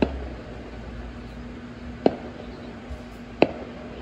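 Distant fireworks going off: three sharp bangs, one at the start, one about two seconds in and one about three and a half seconds in, over a steady low hum.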